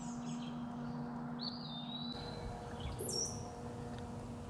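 Wild songbird calls: a high, downward-sliding whistle about a second and a half in, then a short, higher chirp that drops in pitch about three seconds in.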